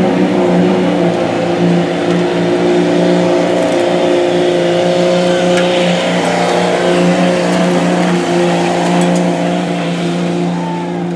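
Pickup truck engine held at steady high revs under full load while dragging a weight-transfer pulling sled across the dirt track.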